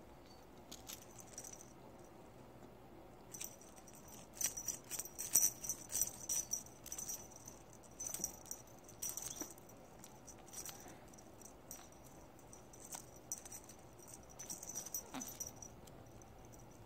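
Small metal bell on a cat's wand toy jingling in irregular bursts as a kitten bats at it, with light ticks and rattles between the bursts.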